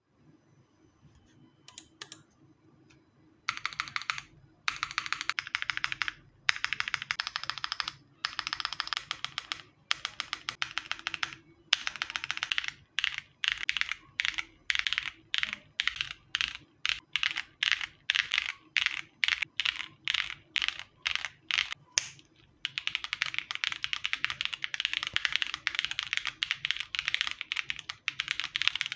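Typing on an Akko Alice Pro Plus mechanical keyboard with stock Gateron Cream Soda switches, GMK Serenity keycaps and no foam in the case. After a quiet start come runs of fast typing broken by short pauses, then a stretch of separate key presses about two or three a second, then fast continuous typing from a little past halfway onward.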